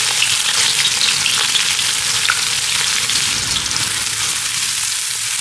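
Chopped onion sizzling steadily in hot desi ghee in a steel karahi, stirred with a wooden spoon.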